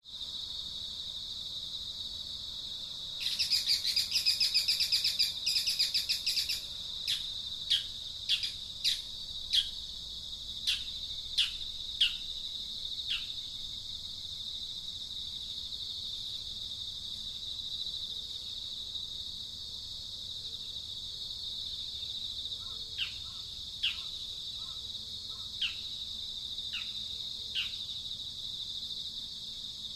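Insects trilling steadily with birds chirping over them: a loud rapid chatter of chirps about three seconds in, then short, single, downward-sliding chirps about once a second, pausing for a while in the middle and resuming near the end.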